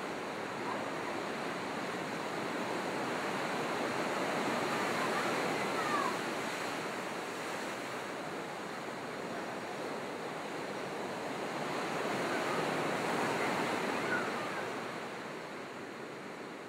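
Waves washing: a steady rushing that swells twice and eases off near the end.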